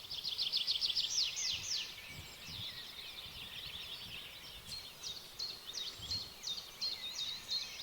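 Small birds singing: a fast high trill in the first two seconds, then scattered chirps and, from about five seconds in, a run of short sharp down-slurred notes, about three a second, over faint outdoor background noise.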